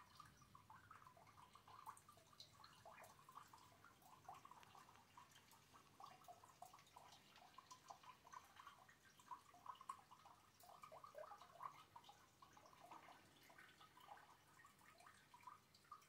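Faint rain: many small drops falling at an irregular rate, with no thunder.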